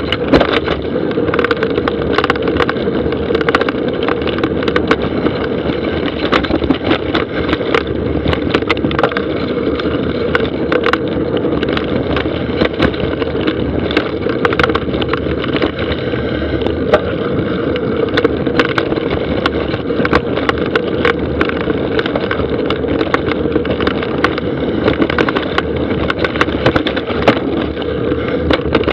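Mountain bike descending a dry dirt trail, heard through a mounted action camera: a steady rumble and rattle of tyres and frame over the ground, broken by many sharp knocks and clatters from bumps, roots and stones.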